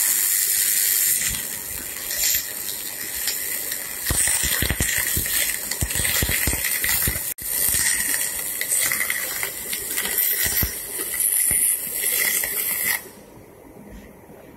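MIG welder arc on aluminium: a steady, loud hissing crackle as a bead is laid, with the voltage and wire speed tuned for a clean weld. It breaks off for an instant about halfway through and stops abruptly shortly before the end.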